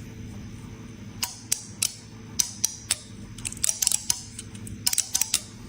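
Irregular light clicks and taps, some in quick clusters of three or four, over a faint steady hum.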